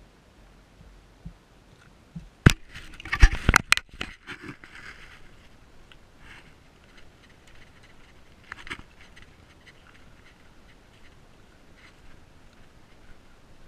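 A quick cluster of loud, close knocks and scraping crunches of beach shells about two to four seconds in, then a few faint scattered ticks and scrapes.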